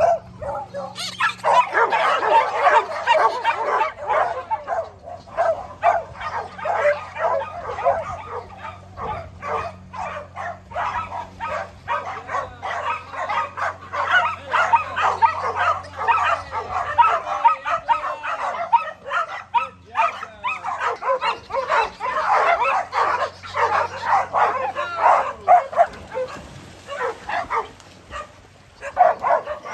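A large pack of dogs barking and yipping at once, a continuous overlapping chorus of calls that eases for a few seconds partway through.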